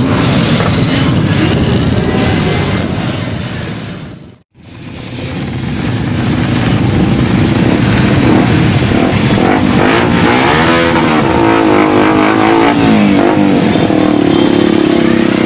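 A large group of motorcycle engines running and revving together. The sound dips out briefly about four seconds in, then returns as motorcycles ride slowly past, with an engine revving up and down near the middle.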